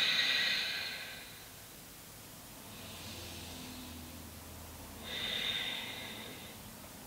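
A woman's audible breathing while holding a yoga pose: a strong breath at the start, a fainter one about three seconds in, and another stronger breath about five seconds in.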